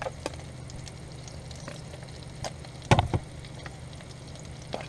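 A metal spoon stirring and scraping rice around a bowl, with scattered small clicks and one louder knock about three seconds in, over a steady low hum.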